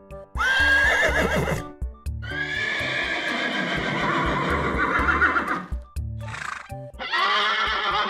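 A horse whinnying several times: a short call, then a long quavering whinny of about three and a half seconds, a brief call, and another beginning near the end. Background music with a bass line plays underneath.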